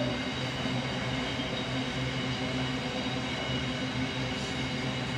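Container freight train rolling past, its intermodal wagons loaded with shipping containers making a steady wheels-on-rail sound with a steady low hum and faint high tones.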